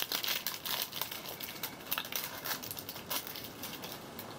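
Plastic toy packaging crinkling and crackling as it is peeled open by hand. The crackles come thick and irregular, then thin out for the last second or so.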